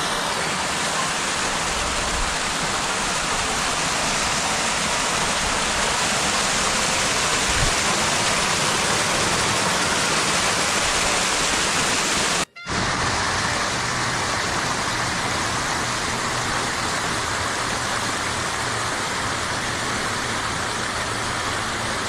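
Small waterfall cascading over rocks: a steady rush of water that cuts out for a split second about halfway through, then carries on.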